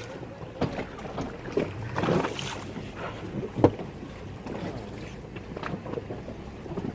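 Sea water slapping and splashing against the hull of a speedboat, with irregular knocks, the sharpest about three and a half seconds in, over wind buffeting the microphone.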